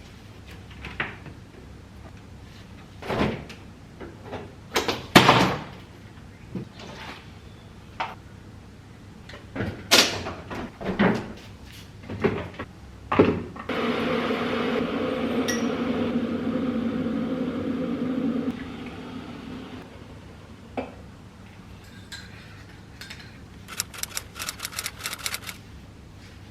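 Indoor handling noises: scattered knocks and clatters like doors and cupboards. In the middle comes a steady mechanical hum with a low drone, lasting about five seconds, and a quick run of clicks follows near the end.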